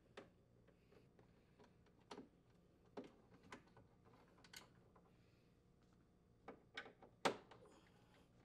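Scattered faint clicks and taps of a quarter-inch nut driver working the screws that hold a plastic freezer drawer glide to the liner, as the two mounting screws are unthreaded, with one sharper click near the end.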